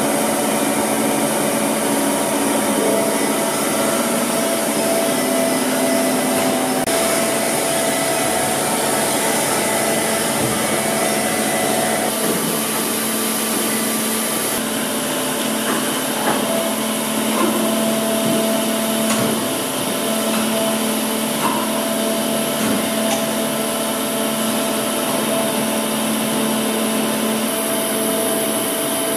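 Hyundai Wia KBN-135 CNC horizontal boring and milling machine running under power: a steady mechanical whir and hum with several tones that shift in pitch at a few points, and a few faint clicks.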